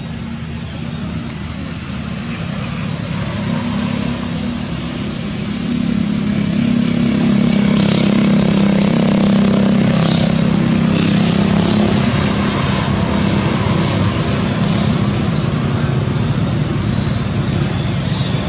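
Motor vehicle engine running steadily, swelling louder through the middle and easing off a little, with a few short high ticks over it.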